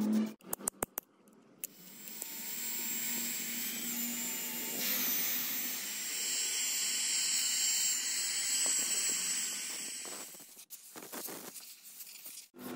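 Electric hand drill spinning a wire cup brush against the rusty end cover of an old electric motor, scouring off rust and old paint: a steady high whine with scratchy hiss that stops about ten seconds in. A few sharp clicks come first.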